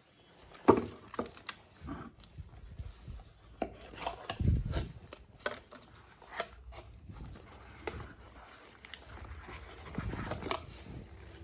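Packaging and a tablet being handled during an unboxing: irregular sharp clicks and taps with rubbing in between, the sharpest click near the start.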